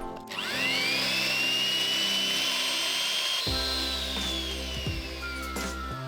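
Electric mixer motor spinning up with a quick rising whine, running steadily, then its pitch slowly falls through the second half, over background music.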